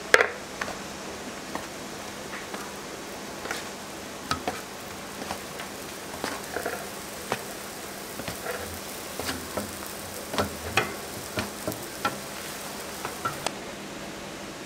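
Balls of hotteok dough sizzling faintly and steadily on a hot oiled griddle. Many short, sharp clicks and knocks are scattered through it, the loudest right at the start. The sizzle's high hiss drops away near the end.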